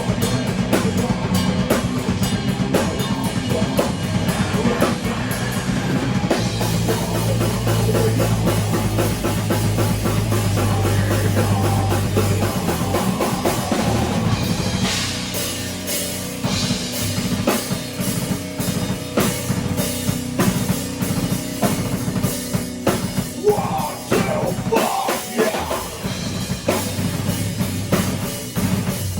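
Rock band playing live in rehearsal: a drum kit with bass drum and cymbals driving the beat under guitar. The playing thins out and gets a little quieter about halfway through.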